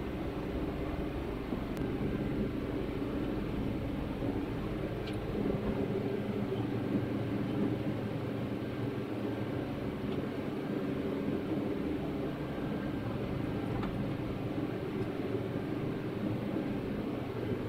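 A steady low drone that holds its level throughout, with no distinct knocks or breaks.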